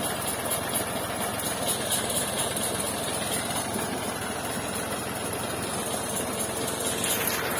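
Massey Ferguson 240 tractor's diesel engine running steadily under load as it drives a tubewell water pump, with the pump's outflow gushing and splashing into a brick channel.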